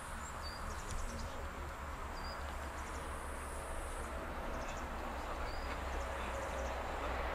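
Woodland ambience: short high chirps and brief rapid trills come and go several times over a steady low rumble.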